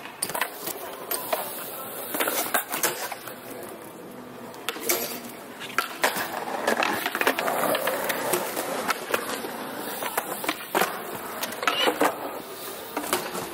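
Wheels rolling on a concrete skatepark surface, with several sharp knocks and clacks scattered through as a BMX bike's pegs and tyres hit a concrete ledge and the ground.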